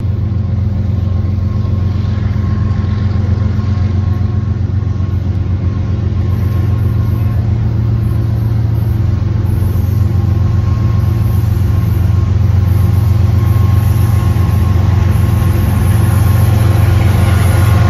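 Diesel locomotives of an approaching four-unit freight train, led by a CN GE ET44AC: a steady low engine rumble that grows slowly louder as the train nears.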